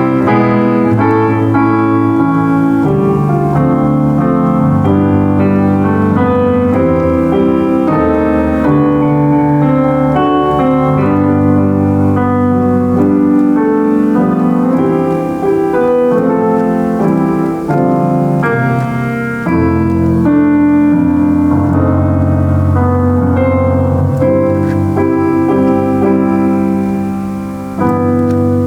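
Solo piano playing a worship song, with held bass notes under a moving melody.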